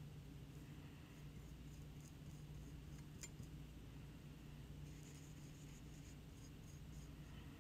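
Near silence: room tone with a steady low hum. A paintbrush dabs glaze onto a bisque ceramic palette, giving a light click about three seconds in and a few faint ticks a couple of seconds later.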